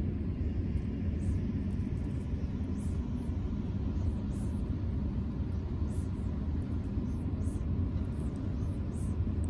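A steady low rumble with no clear pitch, and faint brief hissing sounds now and then.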